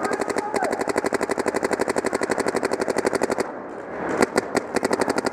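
Paintball marker firing fast strings of shots, about a dozen a second. The string breaks off about three and a half seconds in, a few single shots follow, and then the rapid firing resumes.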